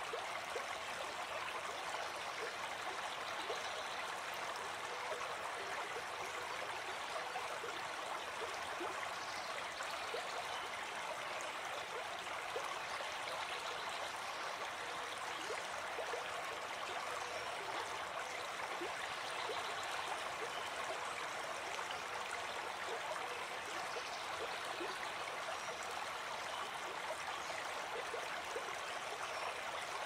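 Flowing water, rushing and babbling steadily with no rise and fall.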